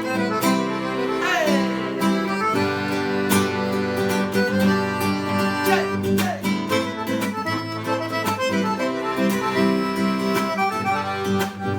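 Forró band playing a song's instrumental introduction: accordion leading over guitar, with a steady beat of percussion hits.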